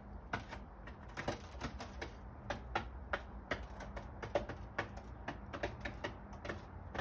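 Eurasian collared doves pecking seed off a windowsill: irregular sharp taps of their beaks on the hard ledge, several a second.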